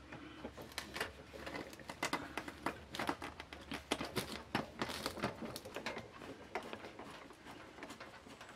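Hand screwdriver driving a screw through a steel ceiling flange into the ceiling: a run of small irregular clicks and scrapes that thins out after about six seconds.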